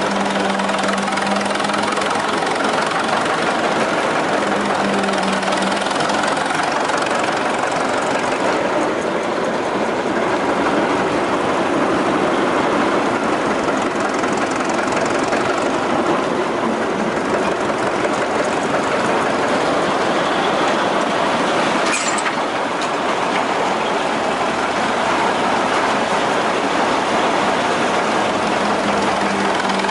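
1926 Twin City gasoline engine of a Northwest 105 dragline running steadily with a connecting-rod knock, the sign of a worn rod bearing. A single sharp tick sounds about two-thirds of the way through.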